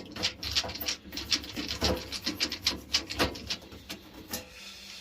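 Irregular scraping, rubbing and clicking of hand tools being worked against boiler parts, quieter towards the end.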